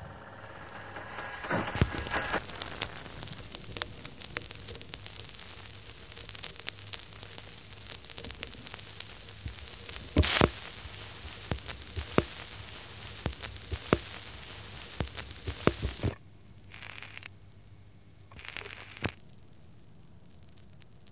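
Irregular crackling and sharp pops over a steady hiss and a low hum. It thins out about three-quarters of the way through, leaving two short bursts of hiss.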